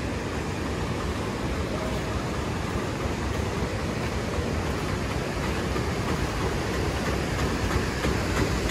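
Steady rushing wind noise on the microphone, with an approaching auto-rickshaw's engine growing slightly louder toward the end.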